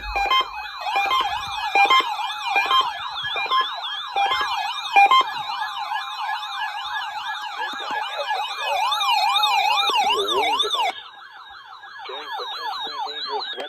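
Several electronic siren wails overlapping, each sweeping rapidly up and down in pitch, with short steady beeps mixed in during the first few seconds. The layered wailing drops to a quieter, sparser sweep near the end.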